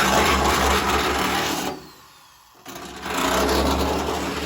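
A motor running steadily with a low hum and a rough mechanical whir. It cuts out about two seconds in and starts again a second later.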